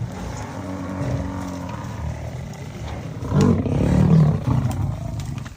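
Lions growling, with a louder outburst about three and a half seconds in.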